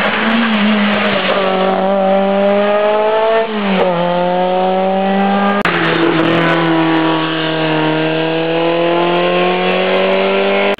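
Historic rally car engines under hard acceleration, the note climbing with a brief drop about three and a half seconds in. About halfway there is an abrupt switch to another car holding a long high engine note that sags and then rises again.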